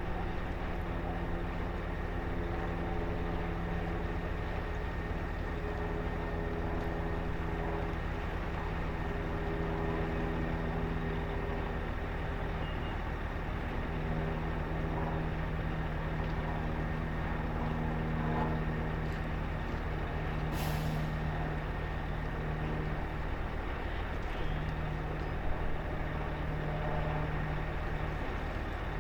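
Boat engine running steadily with a low, even hum whose pitch drifts slightly, and a brief hiss about two-thirds of the way through.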